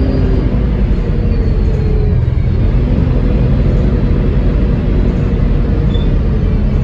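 A double-decker bus's diesel engine and Voith automatic gearbox running under way, a deep rumble with the gearbox's loud hoover-like whine on top. The whine drops in pitch over the first two seconds, then holds steadier.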